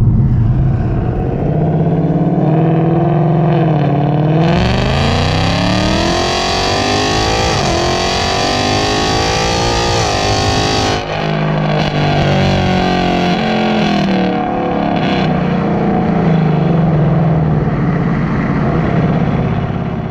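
2018+ Mustang GT's 5.0 L V8 exhaust, loud, accelerating hard: after a steady low run the engine note climbs about four seconds in, dips briefly twice as it shifts up, then drops back about halfway through when the throttle is lifted, and runs on at a lower, wavering pitch.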